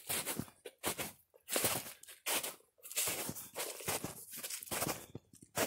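Footsteps crunching through snow on a trail at a steady walking pace, about three steps every two seconds.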